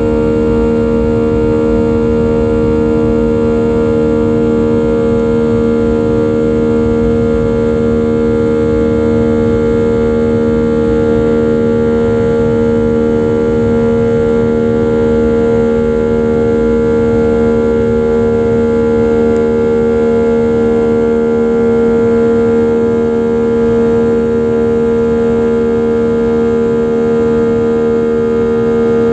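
Boeing 737-700's CFM56-7B turbofan engines running at high thrust, heard inside the cabin: a loud, steady drone of several held tones over a low rumble.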